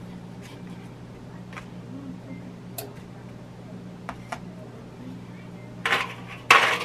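Faint taps and rustles of fingers pressing pie dough into a disposable aluminium foil pan, over a steady low hum. About six seconds in, a louder crinkling clatter of thin aluminium foil as a foil pie plate is handled.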